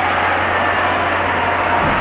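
Large arena crowd making a steady, loud din of many voices, with no single shout or impact standing out.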